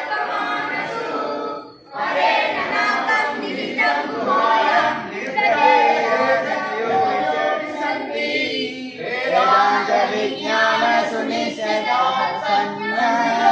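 A group of devotees singing a Hindu devotional hymn together, the aarti sung as the offering plate is presented at the altar, with a brief break about two seconds in.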